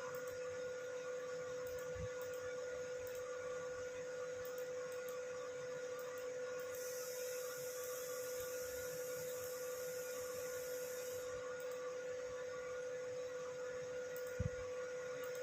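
A steady hum-like tone, with a high hiss that comes in for about four seconds midway and a brief low thump near the end.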